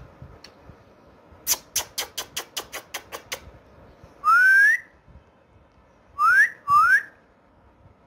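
A quick run of about ten sharp clicks that get fainter, then an Indian ringneck parakeet whistling: one long rising whistle, followed by two shorter rising whistles in quick succession.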